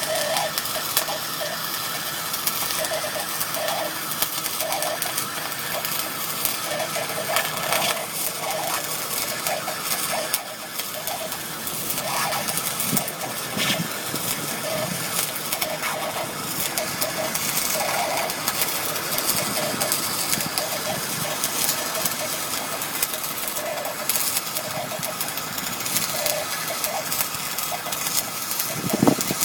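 Semi-automatic wire-feed arc welding on a grooved rail: the arc crackles and sizzles steadily with many fine spitting clicks.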